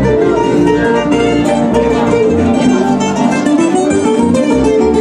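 Music played on plucked string instruments, guitar- and mandolin-like, running steadily.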